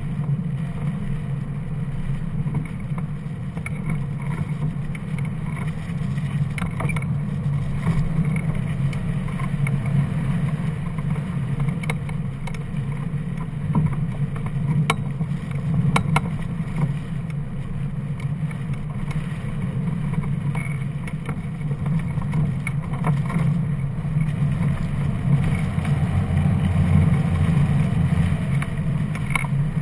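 Rushing airflow buffeting a hang glider–mounted camera in flight: a steady low rumble, with a few faint ticks near the middle.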